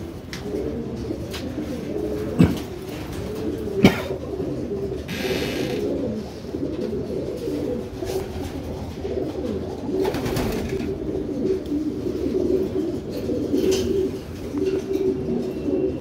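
Homing pigeons cooing in the loft, many low overlapping coos throughout. Two sharp clicks come a few seconds in, and there is a brief rustle near the middle.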